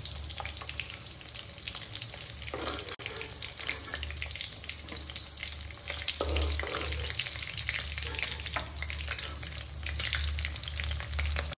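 Masala-coated rohu fish pieces sizzling and crackling in hot oil in a kadhai, with a steel spatula scraping the pan a few times as pieces are lifted out.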